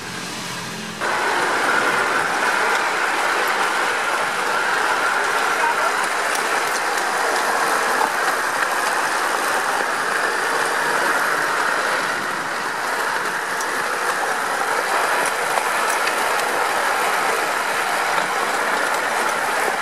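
Small handmade rail trolley rolling along railway tracks: a steady rolling noise of steel wheels on the rails with faint clicks, starting about a second in.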